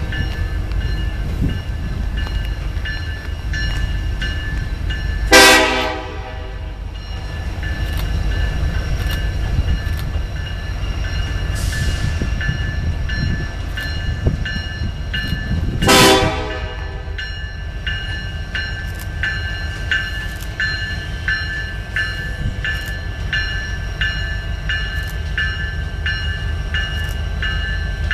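Union Pacific freight train led by three diesel locomotives approaching with a steady low diesel rumble. The locomotive horn gives two short blasts, about five seconds in and again about sixteen seconds in, and these are the loudest sounds. A bell dings repeatedly, most clearly in the second half.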